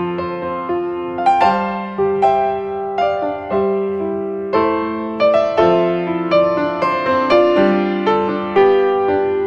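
Background piano music: a gentle melody of single notes, each struck and left to fade, at an unhurried pace.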